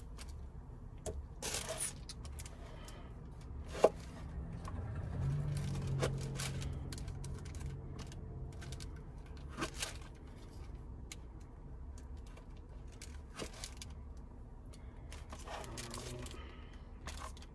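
Scattered scrapes, taps and rustles of fruit being cut and handled on a cutting board, with one sharp knock about four seconds in. A low hum swells and fades for several seconds in the middle.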